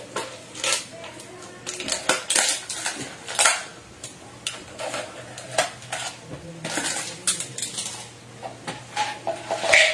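Ice cubes rattling and clinking in a disposable drink cup as it is handled: a run of irregular sharp clicks and clatters.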